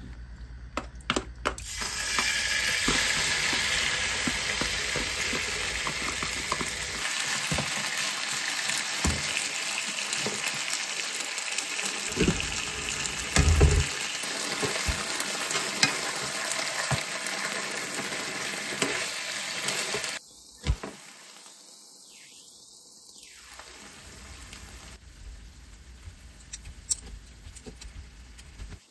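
Spicy marinated seafood in red sauce sizzling in an oiled frying pan, with a loud, steady hiss and a few sharp knocks of utensils against the pan. About 20 seconds in the sizzle drops suddenly to a quieter frying hiss with occasional clicks of stirring.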